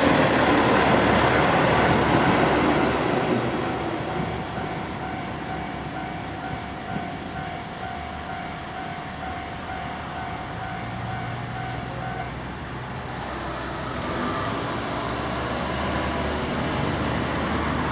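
Railway level-crossing warning alarm ringing as a steady repeating electronic tone, which stops about twelve seconds in as the crossing clears. Over the first few seconds a passing train's running noise fades away, and near the end road traffic starts to move across with rising engine noise.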